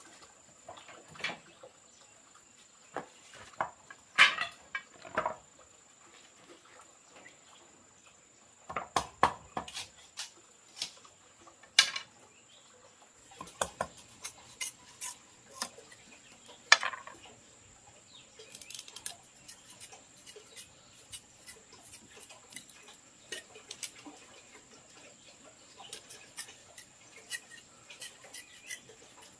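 Scattered clicks, clinks and knocks of objects being handled, irregular and some sharp, over a steady high-pitched insect trill.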